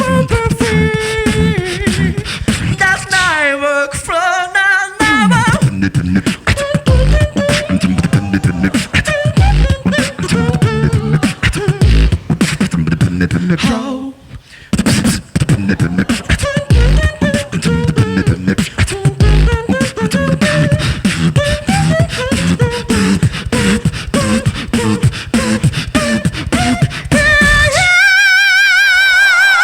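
Two-person beatbox tag team performing: mouth-made kick and snare beats under a sung vocal melody. The sound drops out briefly about halfway, and near the end a high, wavering warble comes in.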